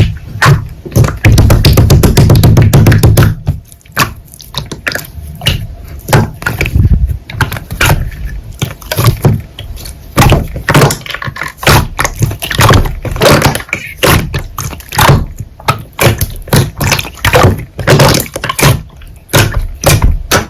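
Slime being squeezed and pressed by hand. A dense run of sticky clicks and pops comes for a couple of seconds near the start, followed by separate squelches and clicks at an uneven pace.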